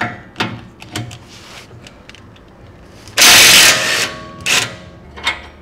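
Cordless Ryobi impact wrench hammering the lower rear shock absorber bolt loose in one loud burst about three seconds in, followed by a second short burst as the bolt spins out. A few light clicks come before it.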